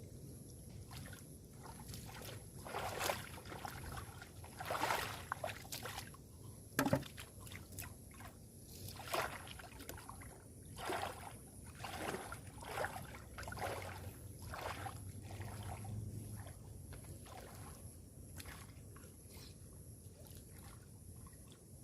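Water sloshing and splashing in irregular bursts, roughly one every second, with a faint steady high-pitched tone underneath.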